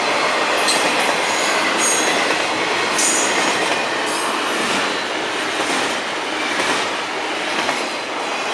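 Double-stack intermodal freight cars rolling past, a steady rumble and clatter of steel wheels on rail. Brief high wheel squeals come about once a second in the first half. The sound slowly fades as the end of the train goes by.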